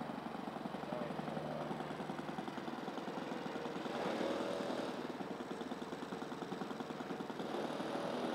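Steady buzzing of a four-rotor tiltrotor model aircraft's motors and propellers in flight, with a fine, rapid flutter. It swells a little about four seconds in.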